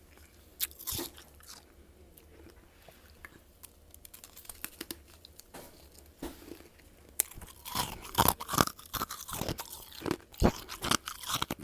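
Crunchy freezer frost being bitten and chewed: a few sharp crunches about a second in, then a dense run of loud crunching from about seven seconds in.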